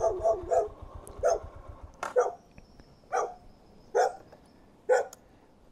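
A dog barking repeatedly, short barks about once a second, at a stopped motorcycle. Under the first barks the Yamaha Lander 250's single-cylinder engine idles, then stops about two seconds in.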